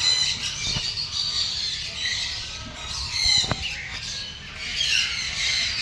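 Birds squawking and chattering, with a harsh rattling call at the start and another about three seconds in.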